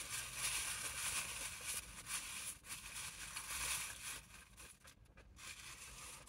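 Close, crackly crunching and rustling for about four and a half seconds, then dying down: eating crisp, light-battered fried fish from a newspaper-lined cardboard takeaway box.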